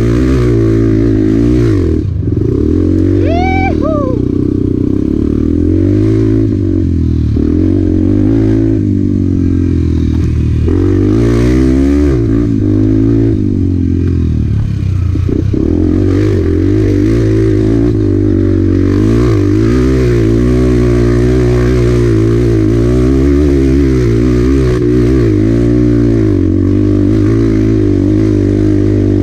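Honda Bros 125 single-cylinder four-stroke engine being ridden hard off-road, its pitch rising and falling constantly as the throttle is worked on and off.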